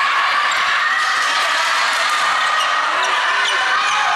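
Steady crowd din in an indoor volleyball hall, with a few short, high squeaks from the court in the second half.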